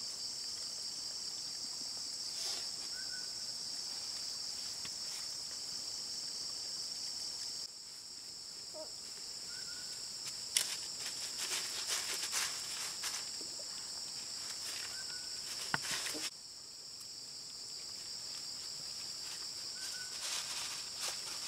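Insects chirring in a steady, high-pitched chorus, dipping abruptly twice and building back up. Through the middle there are scattered rustles and clicks in the grass, and a short faint chirp comes about every six seconds.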